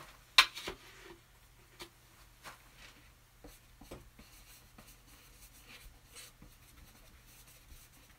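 Flat paintbrush stroking and dabbing paint onto a canvas, a soft scratchy brushing with light taps scattered throughout. One sharp click about half a second in is the loudest sound, and a faint steady low hum runs underneath.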